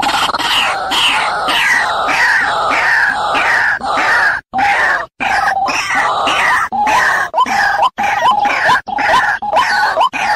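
White-breasted waterhen calling: a rapid series of repeated notes, each falling in pitch. About halfway through the sound cuts out briefly twice, then goes on as shorter notes that rise in pitch.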